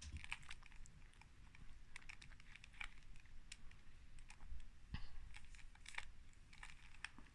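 Plastic 2x2 Rubik's cube being turned by hand: faint, irregular clicks as its layers snap round.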